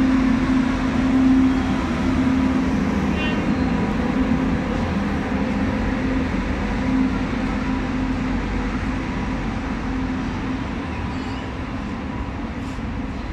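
Electric-hauled passenger train rolling past: the locomotive and then a line of ICF sleeper coaches, a continuous rumble of wheels on rails with a steady low hum that slowly fades as the coaches go by.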